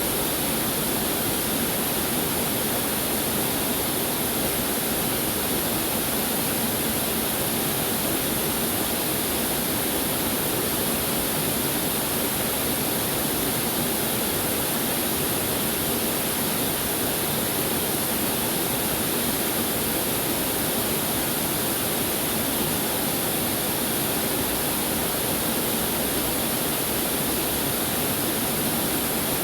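Waterfall: water falling and splashing as a steady, even rush that does not change.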